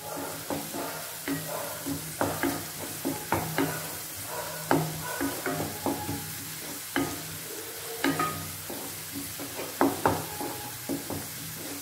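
Wooden spatula scraping and knocking against a non-stick kadai as chopped vegetables are stir-fried in oil, with a steady sizzle underneath. The scrapes come irregularly, a few each second.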